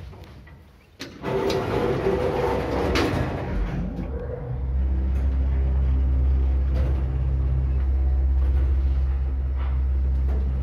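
MLZ passenger elevator (1984, 320 kg capacity): a click about a second in, then the cab's sliding doors closing with a rattle. From about four and a half seconds the hoist motor starts, and the cab runs with a steady low hum.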